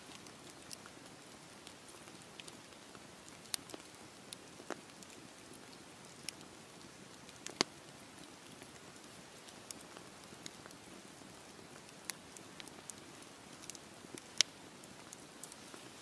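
Wood campfire burning: a soft steady hiss with irregular sharp crackles and pops, the strongest pops about halfway through and again near the end.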